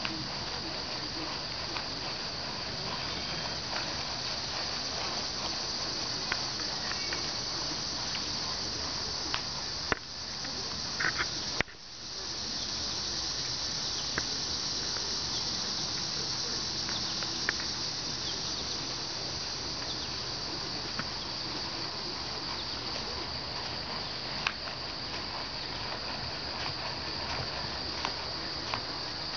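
Steady high-pitched chorus of insects, with the whole sound briefly dipping out about twelve seconds in.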